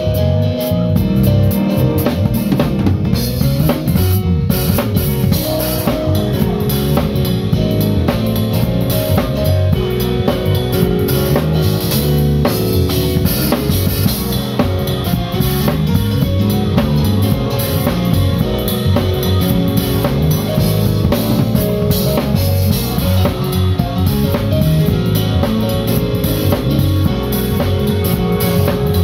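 Gospel band playing live, led by a drum kit heard up close: busy bass drum, snare and cymbal playing over sustained organ and keyboard chords and bass.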